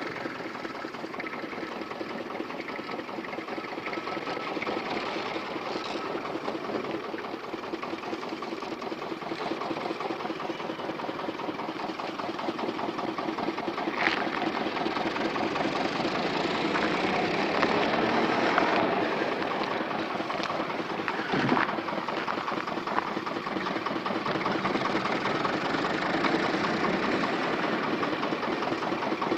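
Steady, rapid mechanical clatter of a small machine, with a few louder clicks around the middle of the stretch.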